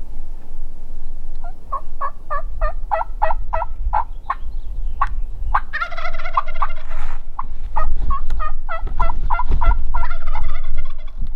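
Wild turkeys calling: runs of quick, short, yelp-like notes, about three a second, broken twice by a longer rattling gobble. A low rumble sits underneath.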